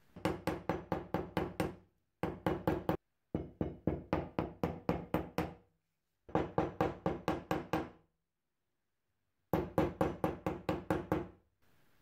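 A small hammer tapping an old steel nail on a small anvil, straightening it for reuse. The taps come in five quick runs of light, evenly spaced strikes, about five a second, with short silences between the runs.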